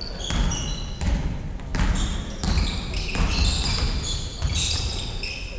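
A basketball being dribbled on a wooden gym floor, with repeated bounces, and sneakers squeaking on the floor as players move, the squeaks busiest in the second half.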